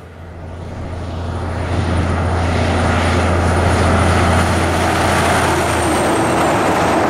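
Road train, a prime mover hauling three side-tipper trailers, approaching and passing close at highway speed: its diesel engine's low drone and the tyre roar grow louder over the first two seconds, then hold loud as it goes by. A faint high whine drops slightly in pitch as it passes.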